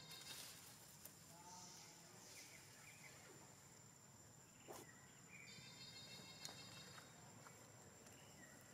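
Near silence: faint outdoor ambience with an insect buzzing on and off, a short faint call about a second and a half in, and a couple of small clicks.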